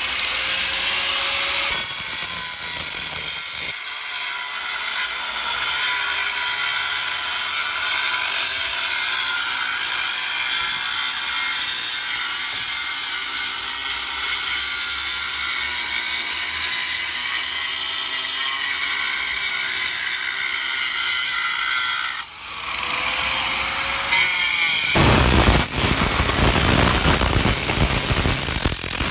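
Ryobi angle grinder cutting into a granite stone, a steady high grinding whine with the grit of the wheel on the stone. About two-thirds through the sound dips and the motor spins back up, and near the end the cut is louder and heavier.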